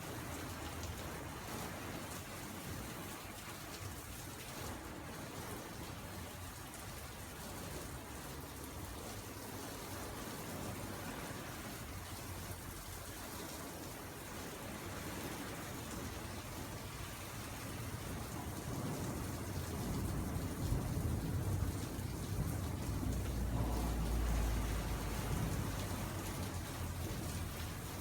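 Heavy rain falling steadily. About two-thirds of the way through, a deep low rumble swells and then eases off near the end.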